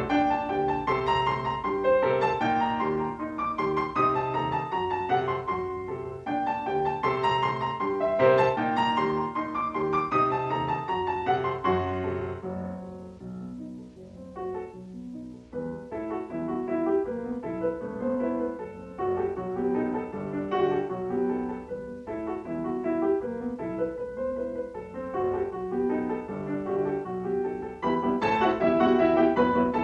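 Instrumental piano music with a slow melody; it drops softer about twelve seconds in and swells louder again near the end.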